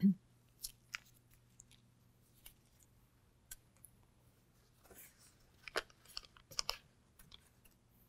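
Scattered faint clicks and crinkles of paper being handled, most of them in a cluster about five to seven seconds in, over a faint steady low hum.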